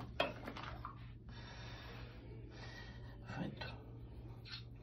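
Soft breathy sounds from a person, a few of them about a second long, over a steady low hum.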